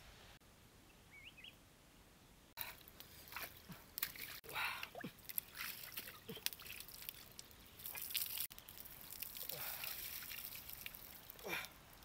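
Wet squelching, slapping and tapping of a raw plucked chicken being handled and cut on a wooden chopping block, in irregular bursts starting a couple of seconds in.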